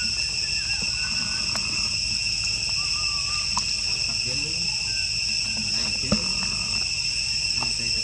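Steady chorus of insects, a high unbroken buzzing at several pitches at once, over a low rumble, with a faint knock about six seconds in.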